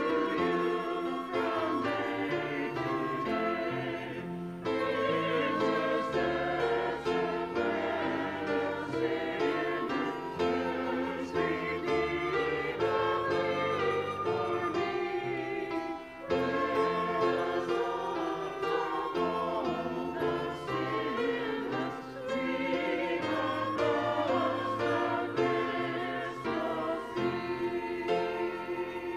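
Small church choir singing a hymn verse in phrases with piano accompaniment, closing on a held chord near the end.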